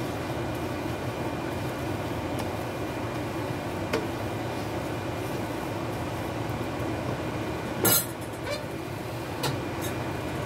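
Steady hum of a kitchen exhaust fan over the stove, with a light tap about four seconds in and a sharp clink of a utensil against a pot near the eight-second mark.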